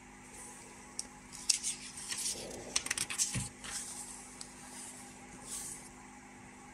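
Old paper pages of an instruction manual being turned and handled: an irregular run of crisp crackles and clicks, with a soft thump about three and a half seconds in.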